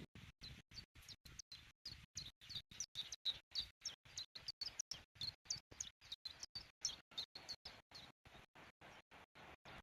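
Small birds chirping, faint high short calls overlapping one another, thinning out over the last couple of seconds. The sound cuts in and out several times a second, giving it a choppy, stuttering quality.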